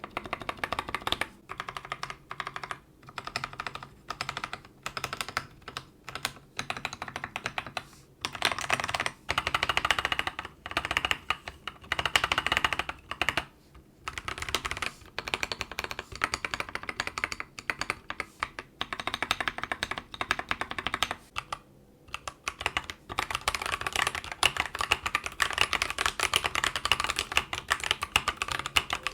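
Mechanical keyboard with Akko CS Jelly Blue switches being typed on, a fast run of clicky-clacky keystrokes. It starts in short separated bursts and turns into long continuous runs. The switches are lubed for most of it, and after a short pause about 22 s in they are stock.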